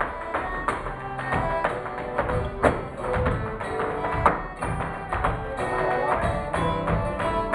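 Live Celtic band music led by a squeezebox and flute, with a dancer's tap shoes striking the stage in quick rhythmic runs over it.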